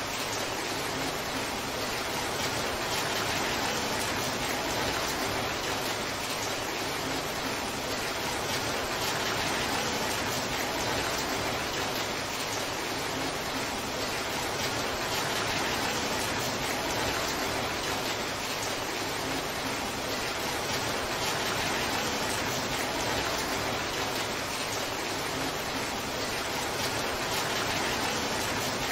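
Torrential downpour: heavy rain falling steadily as an even hiss, with no single drops, thunder or other events standing out.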